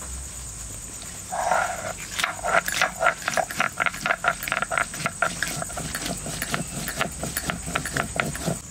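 Chillies being crushed on a flat shil grinding stone with a hand-held stone: rhythmic scraping, knocking strokes of stone on stone, about four a second, starting a little over a second in.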